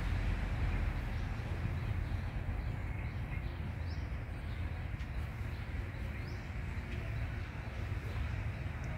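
Steady low background rumble of ambient noise, with two faint short high chirps about four and six seconds in.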